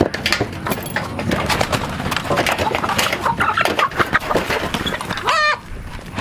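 A flock of hens clucking as they crowd around scattered feed, with many small clicks and scuffs of pecking and scratching in the dirt. One short, louder hen call comes about five seconds in.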